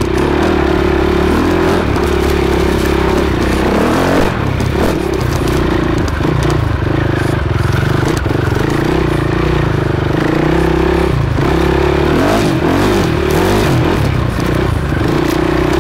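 Enduro motorcycle engine running at fairly steady revs, recorded close up from the moving bike, with a couple of brief dips and scattered knocks and rattles from the rough ride.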